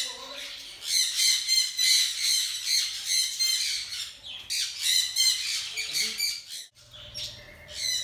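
A flock of sun conures screeching: shrill, harsh squawks repeated several times a second in runs, with a brief lull about two-thirds of the way through.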